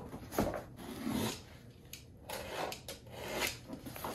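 Cardboard shipping box being handled and set down on a table: a few soft knocks and rubbing scrapes of cardboard.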